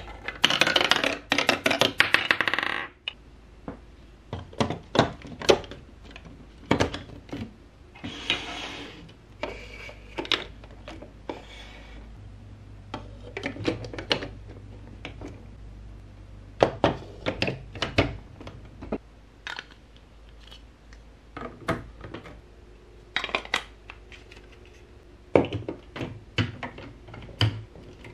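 Hard plastic building blocks and marble-run track pieces clacking and clicking as they are handled and pressed together, in many separate knocks. In the first three seconds a dense rattle, a ball running over the plastic track.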